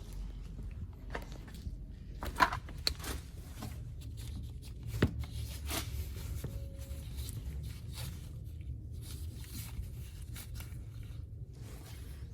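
Handling noises from work on a car engine: scattered clicks, light knocks and scrapes as parts and hoses are handled, with two sharper clicks about two and a half and five seconds in, over a low steady hum.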